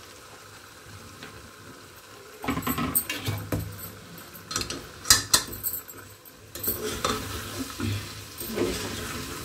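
Steel ladle stirring cauliflower florets into chicken masala in an aluminium pot, scraping and knocking against the pot, over a faint sizzle. It is quieter for the first two seconds or so, then the stirring starts, with one sharp knock about five seconds in.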